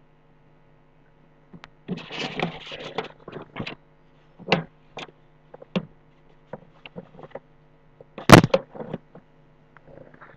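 Handling noises at a desk while writing with a pen tool: a scratchy rustle, then several separate clicks and knocks, the loudest about eight seconds in. A steady electrical mains hum runs underneath.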